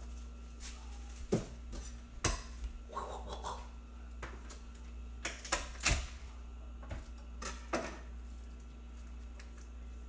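Kitchen utensils and cookware clinking and knocking: a dozen or so irregular, sharp knocks and clicks.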